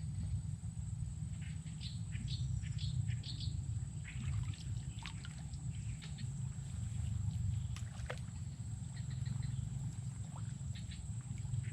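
Swamp ambience: a steady high-pitched insect drone over a low rumble, with scattered short chirps and a sharp tick about eight seconds in.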